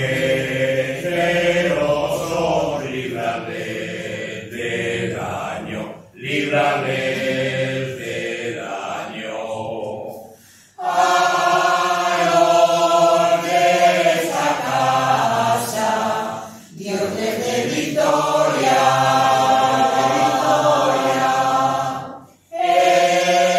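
A mixed choir of men's and women's voices singing a Spanish folk song unaccompanied, in phrases of several seconds with short breaks for breath between them.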